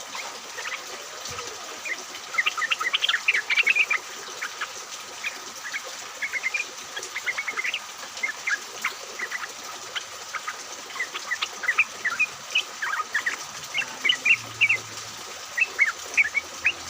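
Yellow-vented bulbuls (trucukan) chattering, a rapid run of short, sharp chirping notes in clusters, several birds calling together.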